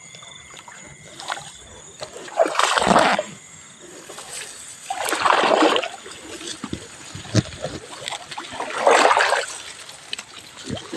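Water splashing and sloshing as a person wades through shallow floodwater, with three louder splashy surges about three seconds apart and smaller sloshes between.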